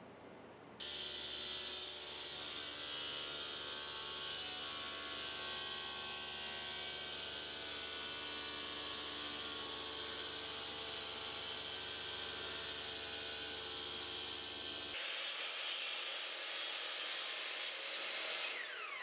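Woodworking power tool running and cutting wood, a steady high-pitched machine whine with a low hum; near the end its motor winds down with a falling pitch.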